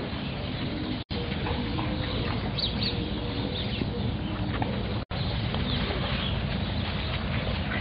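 Steady wind rumble on the microphone, with a few faint, short high whimpers from eight-week-old German Shorthaired Pointer puppies about three seconds in. The sound drops out sharply twice, about a second in and about five seconds in.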